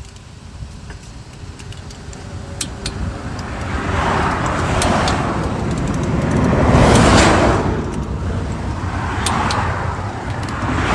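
Highway traffic passing close by: several vehicles whoosh past one after another, each swelling and fading, the loudest about seven seconds in.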